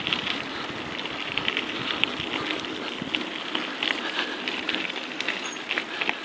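Bicycle tyres rolling over a loose gravel trail: a steady crunching rush, dotted with many small stone crackles and clicks.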